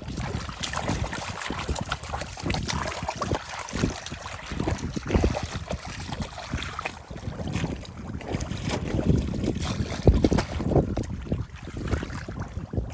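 Irregular splashing and sloshing of shallow field water, in uneven surges with many short splashes.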